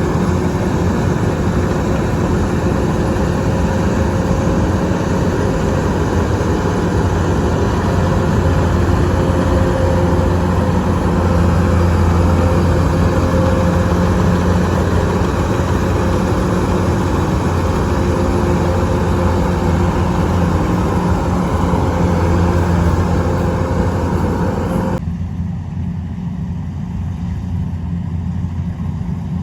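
An engine running steadily with a strong low hum and a wide rushing noise above it. About 25 seconds in, the higher noise cuts off suddenly, leaving the low engine hum.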